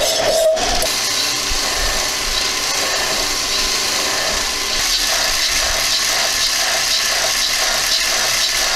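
Mini lathe running while a file is stroked across the spinning metal part for the first half second, then crocus cloth is held against the turning work: a steady abrasive hiss with a faint regular tick as the work turns.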